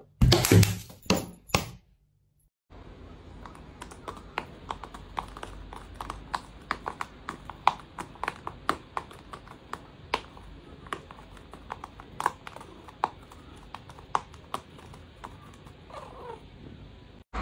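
A round cosmetic powder compact pushed off a dresser edge by a cat hits the floor with a few loud knocks in the first two seconds. After that comes a steady hiss with many irregular light taps and clicks.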